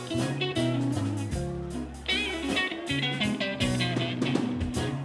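Live electric blues band playing an instrumental passage: an electric guitar lead with bent notes over bass and drums.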